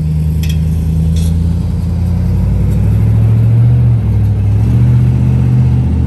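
A motor vehicle's engine running close by: a loud, steady low drone that shifts in pitch about four seconds in.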